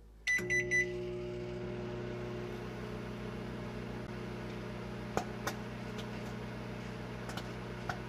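Microwave oven keypad beeping three short times, then the oven running with a steady electrical hum. A little past halfway a few sharp pops come from an egg with a pin-hole in its shell sputtering as it heats.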